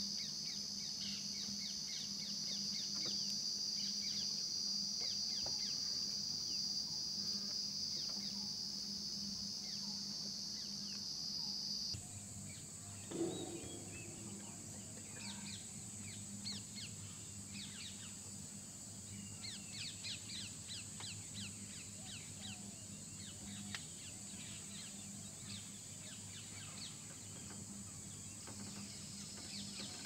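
Evening outdoor ambience: a steady, high-pitched insect chorus with many short bird chirps over it. About twelve seconds in the insect chorus jumps to a higher pitch, and a single louder, lower bird call sounds just after.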